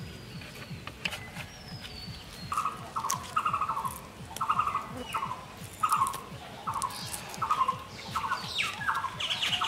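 A bird calling in short, buzzy notes repeated about twice a second, starting a couple of seconds in, with fainter small-bird chirps and a brief sliding whistle.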